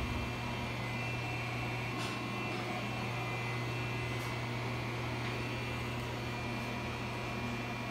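Steady low hum and even hiss of a Syil X7 CNC milling machine, with a couple of faint clicks about two and four seconds in.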